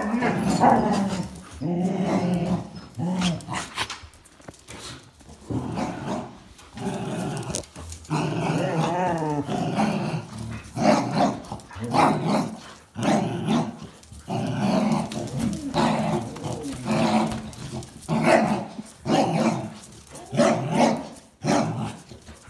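Dogs growling in repeated bouts of a second or two while tugging on a towel: play growling during a tug-of-war.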